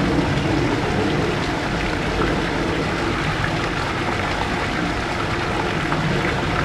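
Steady rush of water gushing from a pipe and splashing into a concrete tank.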